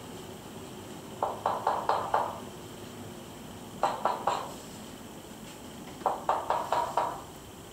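Three bursts of rapid, sharp raps, four to six to a burst, coming about two seconds apart; the source of the knocking is unseen.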